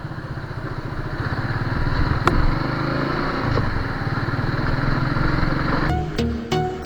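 Motorcycle engine running on the move, its pulsing beat building over the first couple of seconds as it speeds up, then holding steady. Music cuts in near the end.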